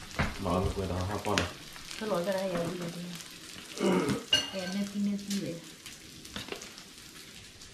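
Beef slices sizzling on a hot electric griddle, a steady frying hiss with a few sharp clicks.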